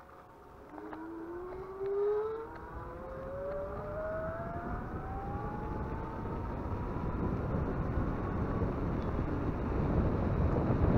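Electric bike motor whining as the bike accelerates, the pitch rising smoothly over several seconds, with wind and tyre noise growing louder as speed builds.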